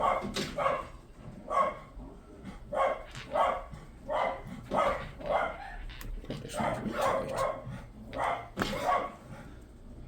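A dog barking over and over, in quick runs of short barks about half a second apart.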